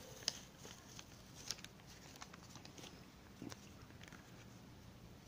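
Faint paper crackle and a few light ticks as a Panini sticker is peeled from its backing paper and handled.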